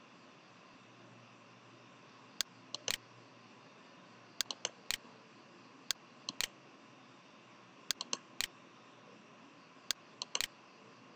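Computer mouse button clicks in small clusters every second or two, over a faint steady hiss.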